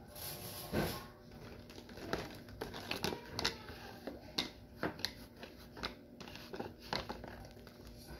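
Plastic hand trowel scraping and scooping potting mix in a plastic flower pot: irregular crunchy scrapes with light clicks, several a second.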